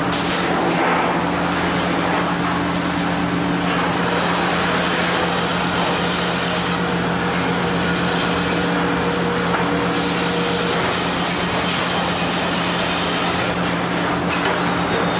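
Sawmill machinery running steadily: a constant low hum with a noisy whirr over it, and a faint higher tone in the middle.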